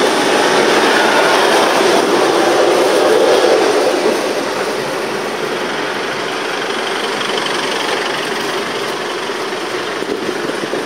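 Steady engine, tyre and wind noise heard from inside a moving open-sided pickup-truck taxi (songthaew), a little louder for the first four seconds, then easing off.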